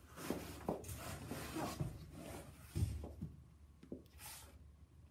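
Exercise mat being carried off and put down: scuffs and handling noises, with a soft thump about three seconds in and a brief rustle a second later.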